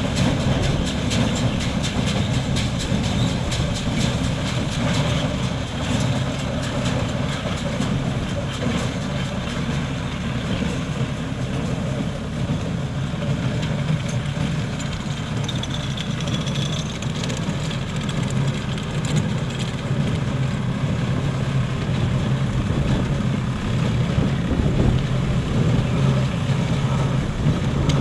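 Engine of a Kartar knotter, a farm machine, running steadily under load with an even, unchanging hum.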